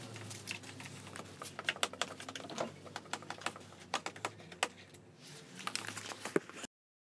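Hands working on a scooter's plastic handlebar controls and body panels: a run of irregular small clicks and taps. The sound cuts out abruptly near the end.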